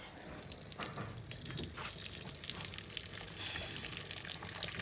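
Hot starchy cooking water being drained off boiled rice: it pours in a steady stream from a tipped pot, through a cloth held over the mouth, and splashes into a vessel below.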